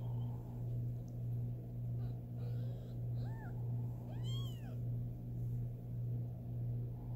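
Newborn kittens mewing: a couple of faint short cries about two and a half to three and a half seconds in, then one louder high mew just after four seconds. A steady low hum with an even pulsing swell runs underneath.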